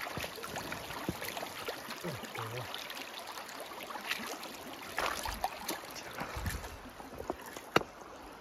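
Shallow creek running over rocks, with scattered splashes and knocks from boots and handling in the water, a few dull thumps midway and one sharp knock near the end.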